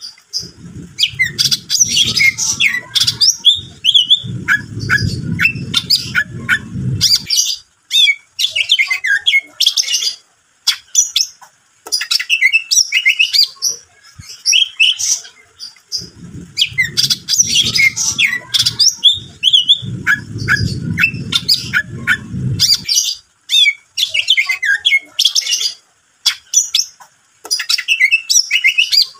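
Greater green leafbird (cucak ijo) song: a rapid, loud, varied string of chirps, whistles and squawks. The song repeats as a loop about every sixteen seconds, and a low rumble lies under the first seven seconds of each pass.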